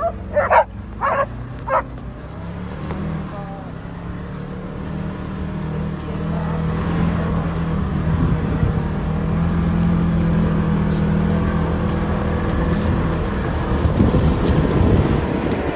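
A few short dog barks in the first two seconds, then a side-by-side utility vehicle's engine running steadily as it drives along a dirt track, building up from about two seconds in. Near the end a rougher rumble of wind and uneven ground joins it.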